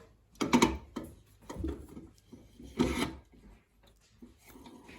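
A few loud knocks and scrapes of objects being handled, the loudest about half a second, one and a half, and three seconds in, then a faint steady hum.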